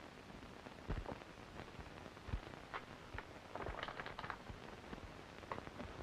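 Hiss and crackle of a worn 1930s optical film soundtrack, with scattered faint clicks and pops.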